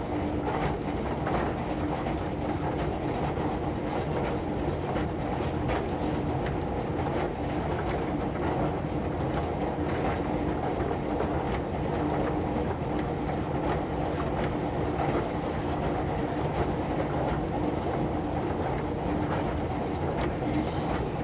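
Moving escalator running steadily: a continuous mechanical rumble with a held hum and light, irregular clicking of the steps and chain.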